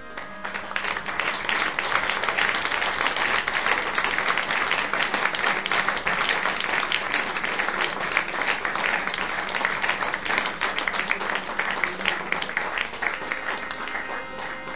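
Audience applauding: dense clapping from a crowd that eases off a little near the end.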